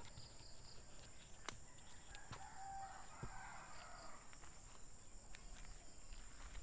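A rooster crowing once, faintly, starting about two and a half seconds in and lasting under two seconds, with a few light clicks and knocks around it.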